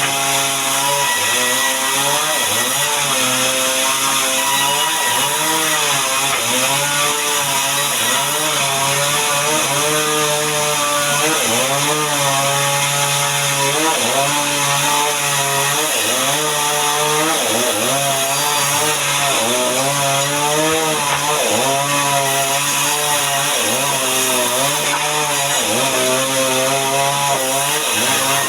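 Chainsaw running under load while cutting mahogany into boards, its engine pitch sagging and recovering every second or two as the chain bites into the wood.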